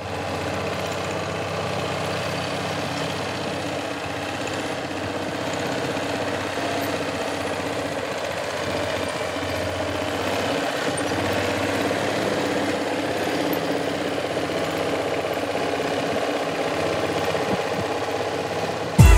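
Farmall tractor engine running steadily under load as it pulls a two-way offset disc harrow through broken ground.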